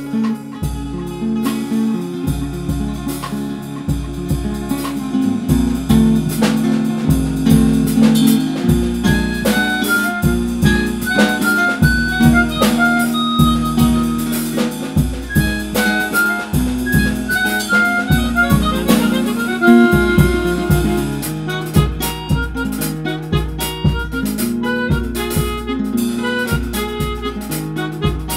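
Flamenco-fusion band music: a harmonica melody over acoustic guitar, with drums keeping a steady beat.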